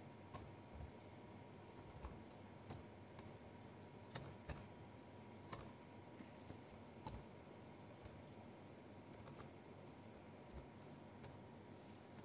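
Faint keystrokes on a computer keyboard: about a dozen separate key clicks at irregular intervals, as a line of code is typed slowly.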